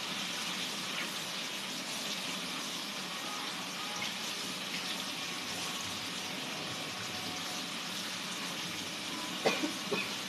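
A kitchen tap runs steadily into a sink while things are washed by hand. A few sharp knocks come near the end.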